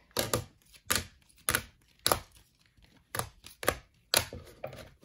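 About ten sharp hard clacks in an uneven series, some in quick pairs: rigid plastic card holders being handled, knocked together and set down on a desk.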